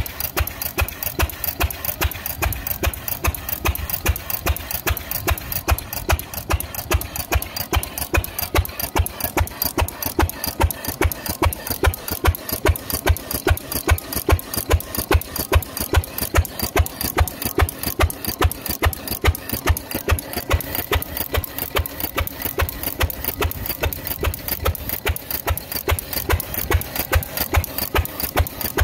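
Small Fairbanks Morse single-cylinder stationary engine running at idle, with a steady, even beat of firing pulses.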